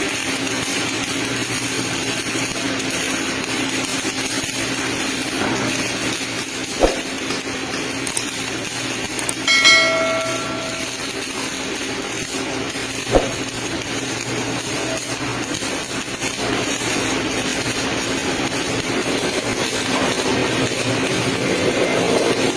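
MIG (gas metal arc) welding arc running steadily with an even crackling hiss. Two sharp knocks come about seven and thirteen seconds in, and a short horn-like tone sounds about ten seconds in.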